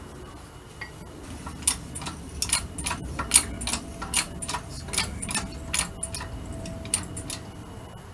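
A series of sharp metal-on-metal taps, about fifteen at an uneven two to three a second, starting after a second or so and stopping shortly before the end: a hammer tapping a bearing race into a wheel hub.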